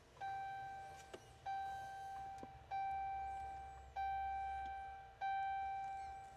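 Pickup truck's dash warning chime, five identical ding tones about a second and a quarter apart, each striking and fading away.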